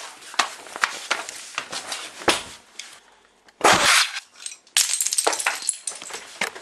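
Firecracker-type pops and crackling, with one louder burst about three and a half seconds in.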